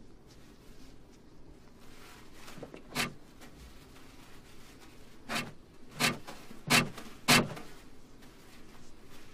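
Paper towels yanked from a wall-mounted dispenser: five short, sharp rasps, one about three seconds in and four in quick succession a couple of seconds later, the last ones loudest.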